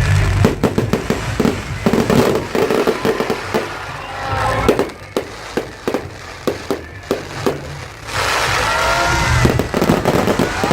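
Aerial fireworks going off in rapid, irregular bangs and crackles. About eight seconds in, a louder steady hiss with gliding, whistling tones takes over.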